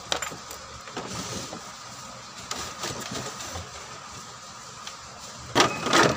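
Plastic back cover of a CRT television being handled: light clicks and taps, then a few louder knocks near the end, over steady background noise with a faint whine.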